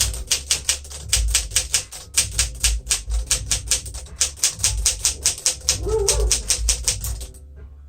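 1957 Smith-Corona Silent-Super manual typewriter being typed on: a fast, steady run of key strikes, about seven a second, stopping shortly before the end.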